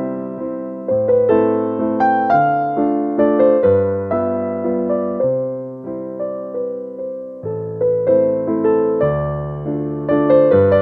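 Background piano music: a gentle melody of struck notes that fade away, over soft chords.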